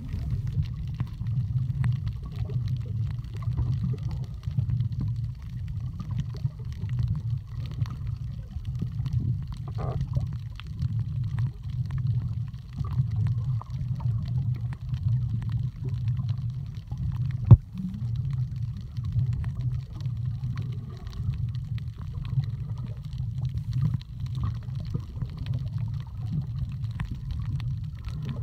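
Underwater sound picked up by a camera: a muffled, uneven low rumble of moving water with faint crackling throughout, and one sharp click a little past the middle.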